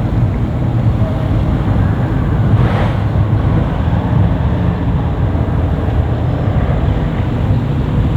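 Boat engines running at low speed, a steady low rumble, with a brief hiss about three seconds in.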